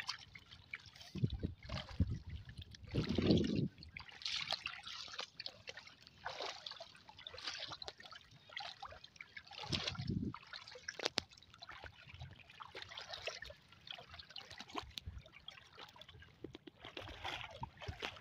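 Shallow water sloshing and trickling in irregular bursts as a monofilament gill net is lifted and handled and a person wades. There are heavier low splashes about three seconds in, which is the loudest moment, and again about ten seconds in.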